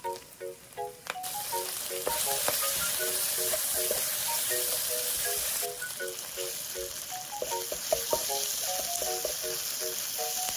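Minced pork with chilli bean paste sizzling in a hot nonstick wok as it is stirred with a wooden spatula; the sizzle gets much louder about a second in. A few clicks of the spatula against the pan, over a light plucked-note background melody.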